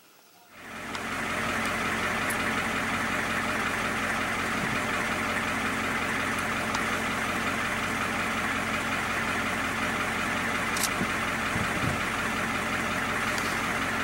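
A vehicle engine idling steadily: an even hum and hiss that fades in about half a second in and holds level with no change.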